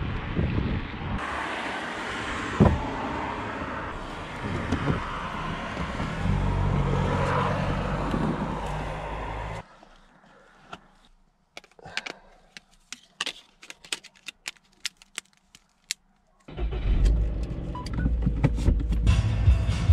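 Steady outdoor noise with a low hum from about six seconds in. It drops to quiet with a run of small clicks and knocks, the sounds of gear being packed into a car. About three seconds before the end a loud low steady drone comes in, a car engine running.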